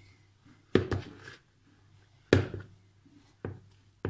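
A spoon stirring stiff dough in a plastic mixing bowl and knocking against the bowl: a few sharp knocks about a second apart.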